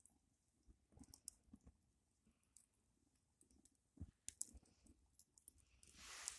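Faint crackling of a wood fire: scattered small pops and clicks, with a brief hiss near the end.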